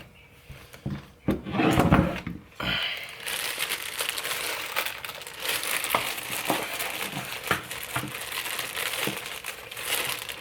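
Plastic parts bags from a steering column rebuild kit crinkling and rustling as they are handled, with a few louder bumps of handling about one to two seconds in.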